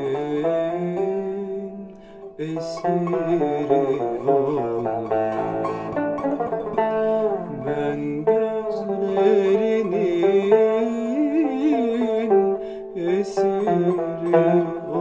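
Turkish tanbur, a long-necked fretted lute, plucked with a plectrum, playing a flowing melodic line. The playing dips in loudness briefly about two seconds in.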